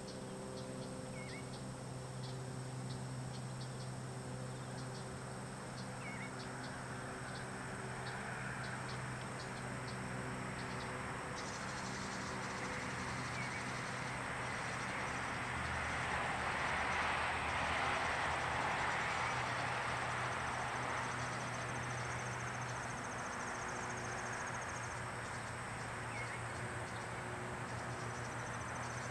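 Summer yard ambience: insects chirping and trilling high and steady, over a low steady hum. A vehicle passes, loudest about halfway through, and a few faint short bird chirps come now and then.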